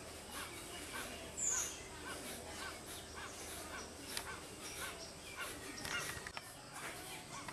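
Kapalbhati pranayama breathing: sharp, forceful exhalations through the nose repeating at an even pace of about two a second. A short high chirp cuts in about one and a half seconds in.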